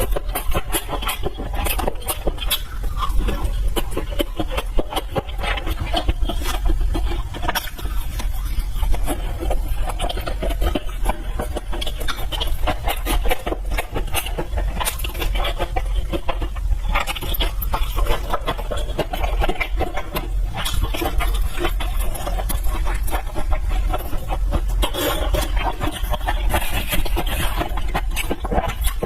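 A person eating: a dense run of chewing, slurping and small clicks and scrapes of utensils on a bowl, over a steady low hum.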